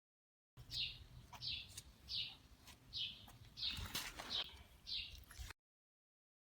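A bird calling: seven short downward-sweeping chirps at an even pace, starting and stopping abruptly.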